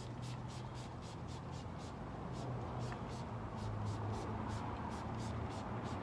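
A cloth pad rubbed back and forth over a car tyre's sidewall, applying tyre shine: a quick swish with each stroke, about three a second, over a steady low hum.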